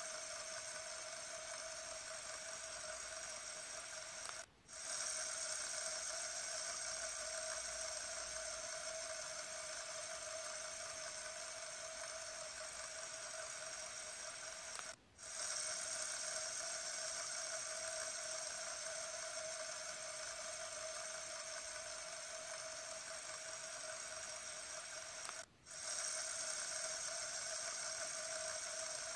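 Fidget spinner spinning steadily with a constant whirring hum, holding one pitch throughout. The sound cuts out briefly three times, about every ten seconds.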